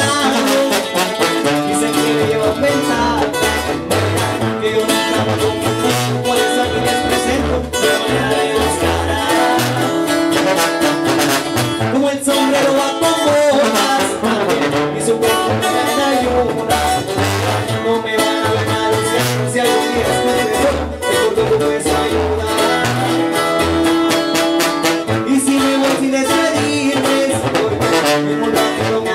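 Live band music: a male singer over strummed acoustic guitar, with a tuba playing the rhythmic bass line.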